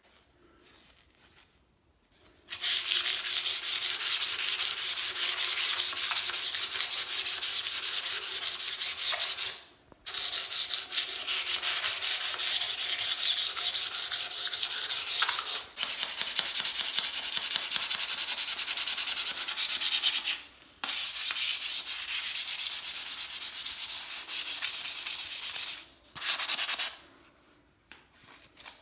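Quick back-and-forth hand scrubbing of an old pellet gun's metal barrel with a pad, making a harsh, rasping hiss. It breaks off briefly about ten and twenty-one seconds in and stops near the end.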